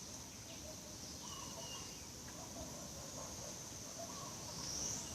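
Birds calling: short calls repeating every second or so, with one brief higher call about a second in, over a steady high-pitched insect chirring.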